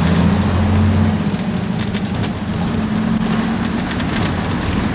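AEC Regent III RT double-decker bus's diesel engine running under way, heard from inside the bus: a steady low engine note that shifts a little about a second in and again near the middle, with a few light rattles from the body.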